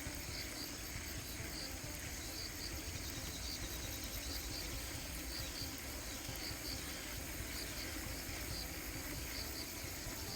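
Insects chirping in a steady, even rhythm, about two short high chirps a second, over a faint steady hiss.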